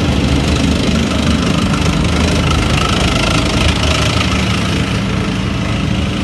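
Tank driving past at close range: its engine and steel tracks running loudly on the road, loudest a couple of seconds in as it passes.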